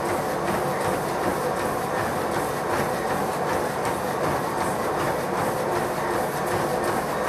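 Motorised treadmill running with a steady hum from its motor and belt, and running footfalls thudding on the belt about three times a second.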